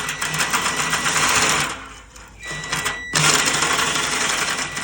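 Cordless drill running, spinning a turbo tank cleaner's spring inside an electric or gas water heater tank through the drain valve to break up the sediment. It stops about two seconds in and starts again about a second later.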